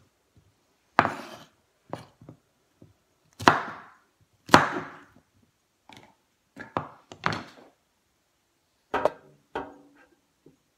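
Chef's knife chopping cauliflower and broccoli on a wooden cutting board: about a dozen chops at uneven intervals, each a sharp knock of the blade on the board.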